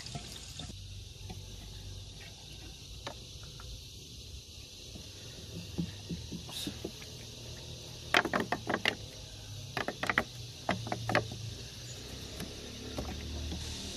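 Radiator coolant being poured from a plastic jug into the radiator filler, a steady hiss with clusters of sharp clicks about eight seconds in and again around ten to eleven seconds.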